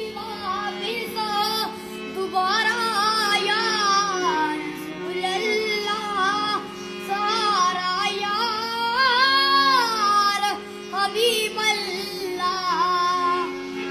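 Indian film song intro: a high voice singing an ornamented melody with strong vibrato, over steady held accompaniment notes.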